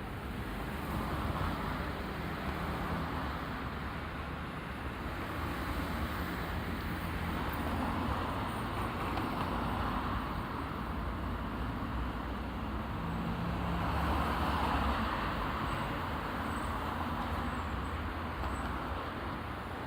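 Road traffic at an intersection: a steady wash of car engines and tyre noise, with vehicles passing in waves, the loudest about two-thirds of the way through.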